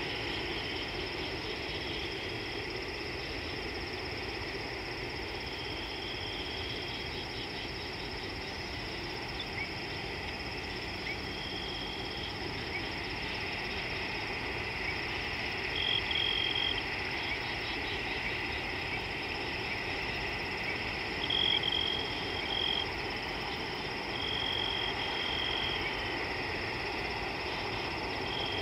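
A steady, high-pitched chorus of small calling animals over a low hiss, with short, high buzzing calls that come back every few seconds, the loudest about halfway through and a few seconds later.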